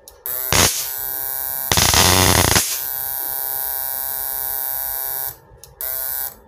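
Electric arc buzzing as the output leads of a homemade two-MOSFET PWM-driven high-voltage inverter are shorted together without protection. A louder crackling burst comes about two seconds in, the buzz breaks off about five seconds in and comes back briefly near the end.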